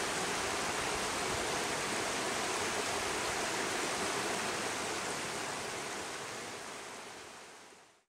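Shallow mountain river rushing over stones and rocky shallows, a steady even rush that fades out over the last three seconds.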